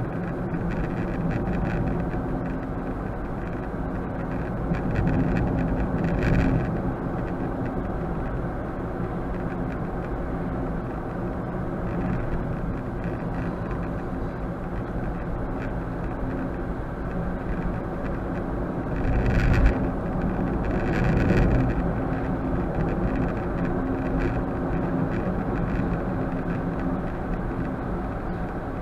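Car driving, heard through the dash cam's microphone inside the cabin: steady road and engine rumble, swelling louder about six seconds in and again around twenty seconds.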